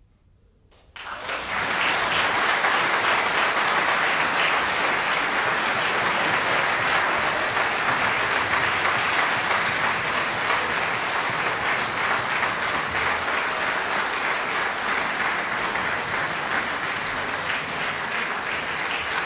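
Concert audience applauding, bursting in suddenly about a second in after a brief hush and then going on steadily, easing slightly near the end.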